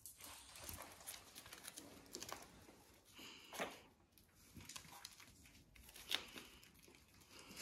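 Faint crinkling and rustling of a puppy training pad as young puppies scramble over it, with scattered short scratches and two louder sharp crinkles, about halfway through and later on.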